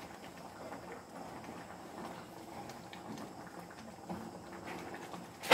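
A slotted spatula stirring a thick mung bean stew in a frying pan, scraping the pan and knocking softly against it in irregular clicks.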